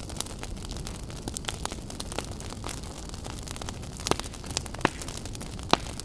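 Fire burning: a steady low rumble of flames with scattered crackles and sharp pops, the three loudest pops in the second half.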